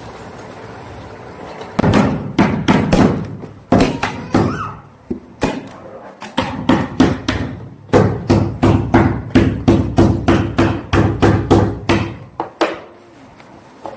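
Hammer striking wood over and over, about two to three blows a second, in two runs with a short break around five seconds in.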